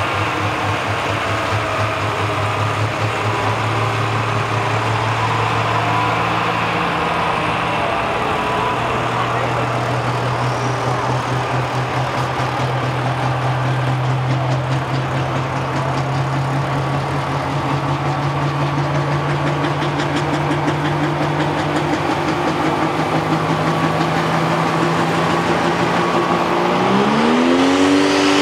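Pro stock pulling tractor's turbocharged diesel engine running at a fast idle with a steady drone; its pitch steps up about a quarter of the way in and creeps higher, then it revs up sharply near the end as the pull starts.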